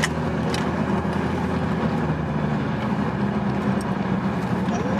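Steady road and engine noise heard from inside a moving car's cabin: an even low rumble with a faint hum, and a couple of light clicks.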